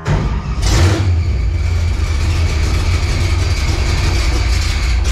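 The 1955 Chevy drag car's engine starting: it catches with a quick rev within the first second, then runs loud and steady at idle with a strong low rumble.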